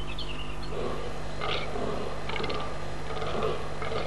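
Rough, low animal calls, most likely fallow deer, coming in about a second in and going on irregularly. Small bird chirps sound near the start, over a steady low hum.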